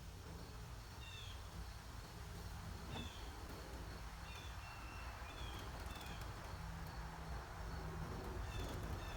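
Faint, short high chirps from a bird, repeating every second or so over a steady low background hum and noise.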